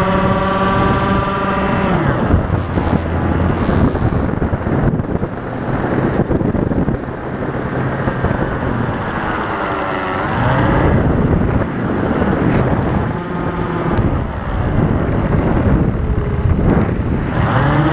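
Wind rushing over the microphone of a foam RC plane in flight, with the whine of its motor and propeller coming through in places. The whine drops in pitch about ten seconds in and rises again just before the end.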